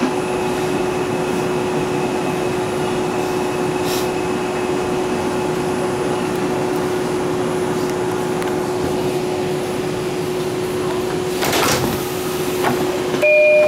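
Inside an R142 subway car coasting slowly into a station: a steady electrical hum with one constant tone, a short hiss of air about three-quarters of the way through as the train stops, then a brief electronic door chime near the end.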